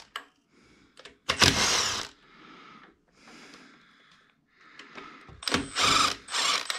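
Hand tools and metal parts being handled: two loud bursts of clattering and clicking, about a second and a half in and again at about five and a half seconds, with fainter handling noise between them.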